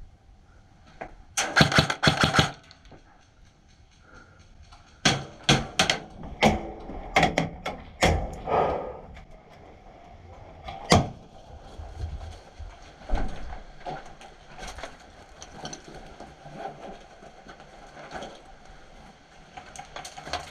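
Airsoft rifle fire: a quick burst of sharp, rapid clicking shots about a second and a half in, more scattered shots a few seconds later, and one lone shot about eleven seconds in.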